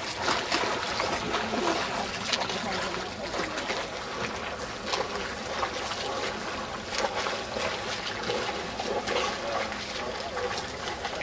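Front-crawl swimmer's arm strokes splashing close by in open water: irregular splashes over continuous sloshing water.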